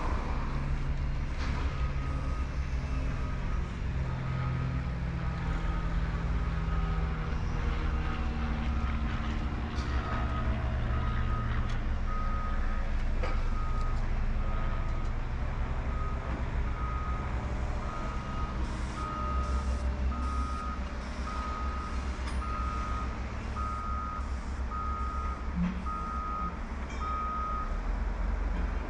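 Reversing alarm on a construction vehicle beeping steadily about once a second, over the low rumble of a heavy vehicle's engine.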